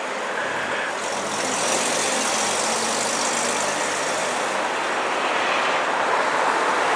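Vintage Bedford coach driving past, its engine running steadily under the hiss of tyres on the road.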